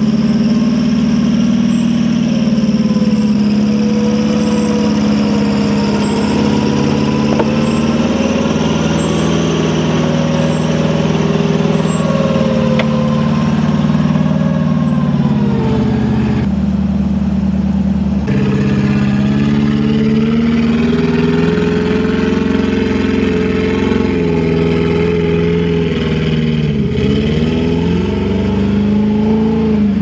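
Off-road 4x4's engine running steadily under load, its pitch slowly drifting up and down, with a brief shift in the sound for a couple of seconds just past halfway.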